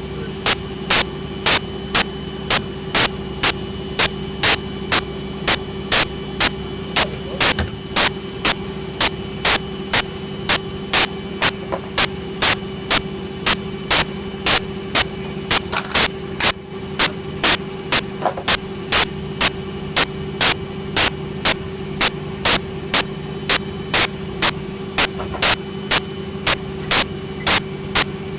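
Servis Quartz 6033 washing machine running with a steady motor hum, over which a sharp click repeats evenly about twice a second.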